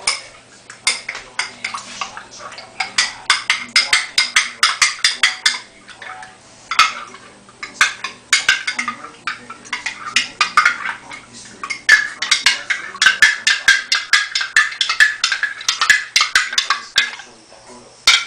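A metal spoon stirring briskly, clinking rapidly against the sides of a container in three runs of quick clinks with short pauses between.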